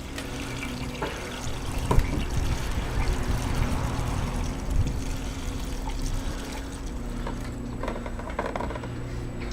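Gasoline being poured into the lawn mower's fuel tank, a steady liquid pour with a couple of light knocks, refuelling the engine after its carburetor service.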